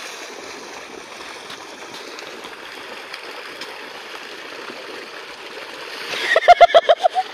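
Water gushing from a tubewell's outlet pipe and splashing into an irrigation channel, a steady rush. About six seconds in, a person's voice breaks in with a loud, quick run of pulses lasting about a second.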